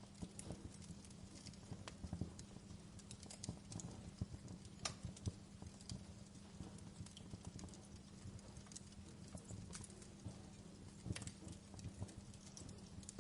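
Wood fire crackling: faint, irregular pops and snaps, with a few sharper snaps standing out, over a low steady hum.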